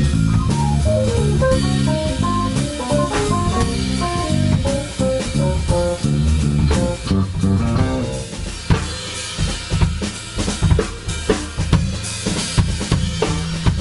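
Instrumental rock band playing together: drum kit, Music Man electric bass and double-neck electric guitar. The drums and bass are prominent, and a fast descending run of notes plays over them in the first half.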